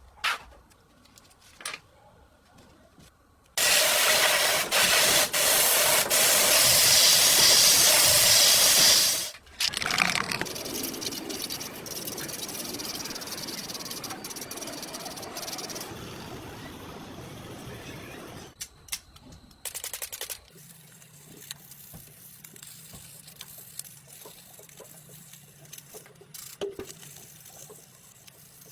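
A loud, steady hiss of a pressurised spray or air jet, about six seconds long with a couple of momentary breaks. It gives way to softer, uneven noise, and in the last part to a low steady hum under faint handling sounds.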